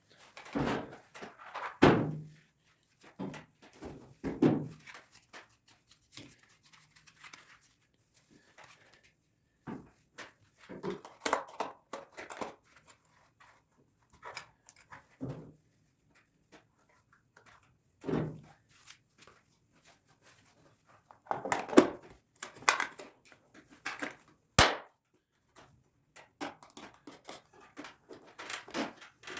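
Scattered knocks, clunks and short scrapes from parts and tools being handled at a workbench, coming in irregular clusters; no engine is running.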